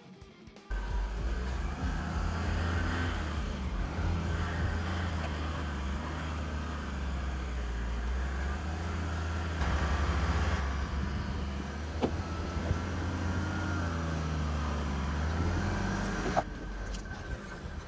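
Car driving along a road: a steady low engine drone with road and tyre noise.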